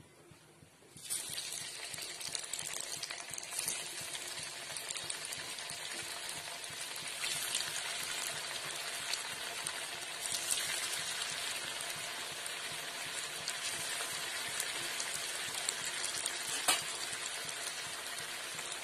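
Slices of steamed colocasia-leaf roll (alu vadi) sizzling as they deep-fry in hot oil in a kadhai. The sizzle starts suddenly about a second in, when the first slice goes into the oil, and holds steady with scattered crackles while more slices are added. There is one sharp crackle near the end.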